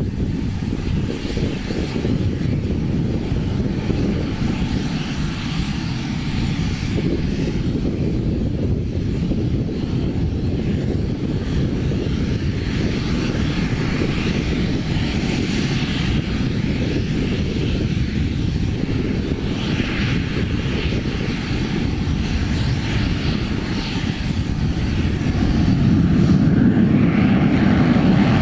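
Eurofighter Typhoon's twin EJ200 turbofan jet engines running as the fighter taxis and lines up, a steady low jet noise with a hiss on top. Near the end it grows louder as power comes up for the takeoff roll.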